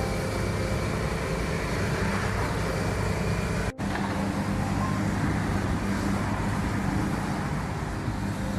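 Steady vehicle and road-noise rumble, broken by a very short dropout a little under four seconds in.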